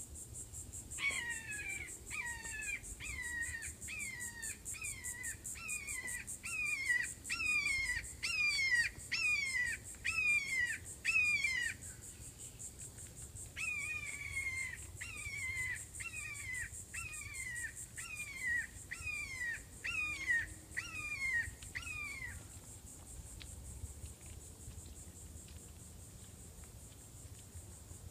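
Red-shouldered hawk calls: two long runs of repeated, falling 'kee-ah' screams, a little under two a second, with a short pause between the runs. They are played as a lure to get a lost red-shouldered hawk to call back. A steady high insect trill runs underneath.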